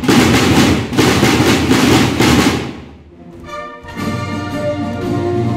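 A girls' drum corps playing snare drums together in loud rolling strokes, pulsing about once a second, that stop and ring away about three seconds in. Orchestral music then comes in.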